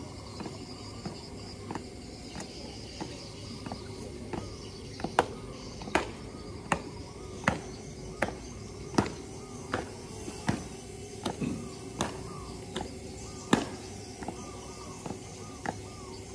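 Marching feet stomping on concrete in a steady beat, about one step every three-quarters of a second, louder through the middle.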